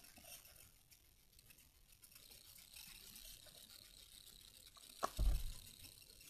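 Faint small handling noises of craft materials being worked by hand, with a sharp click and then a short low thump about five seconds in.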